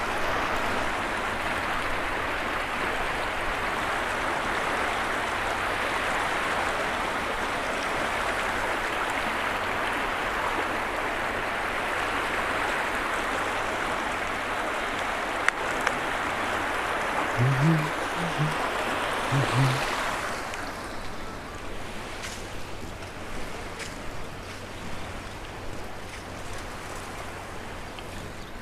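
Floodwater rushing after heavy rain, a steady loud roar of water that drops to a softer hiss about two-thirds of the way through. A few short low sounds come just before the drop.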